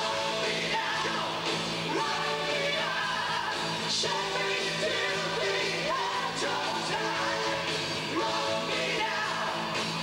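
Hard rock band playing live: a male lead vocal sings over electric guitar through Marshall amplification, drums, bass and keyboards. Recorded from the audience floor, so the mix is roomy.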